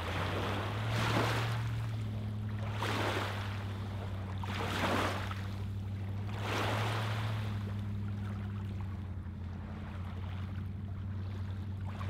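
Small lake waves lapping and washing over a pebbly shoreline, four washes about two seconds apart and then fainter ones in the second half, over a steady low hum.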